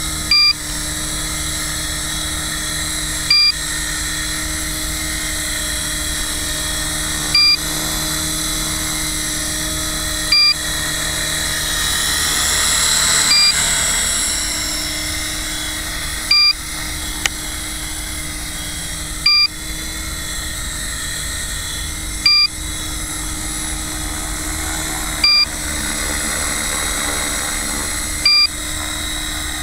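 Small electric radio-controlled helicopter hovering and manoeuvring close by: a steady whine of motor and rotor that swells louder in the middle as it comes nearer. A short, sharp electronic beep sounds about every three seconds, louder than the helicopter.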